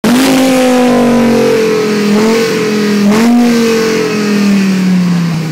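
Dodge Viper SRT-10's 8.4-litre V10 running at high revs, loud enough to distort the recording. The pitch sags slowly, jumps up in two short throttle blips about two and three seconds in, then falls steadily as the revs come down.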